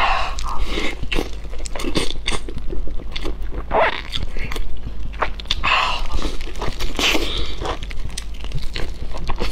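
Close-miked eating sounds: repeated crunchy bites and chewing of crisp fried food, many irregular crackles and clicks. A steady low hum runs underneath.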